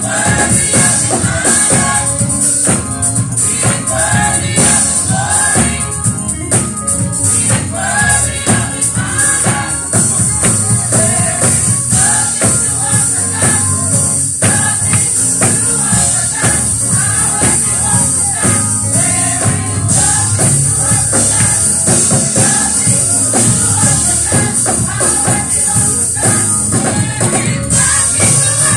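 Gospel choir singing with instruments, a tambourine jingling steadily along with the beat.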